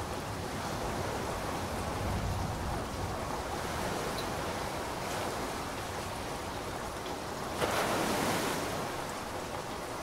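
Ocean surf: a steady wash of waves. One wave breaks louder with a sudden onset about three-quarters of the way through, then fades.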